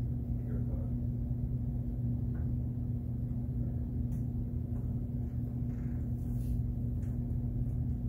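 Steady low hum with two constant low tones over a faint rumble, the room's background with no one speaking.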